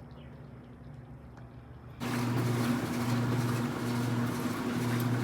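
A steady mechanical hum, with much louder machine noise cutting in abruptly about two seconds in. The deepest part of the hum swells and fades roughly once a second.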